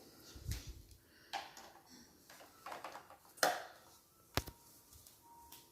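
Toy trigger spray bottle and cleaning trolley being handled: light clicks, taps and soft knocks, with one short spray hiss a little after halfway and a sharp click soon after.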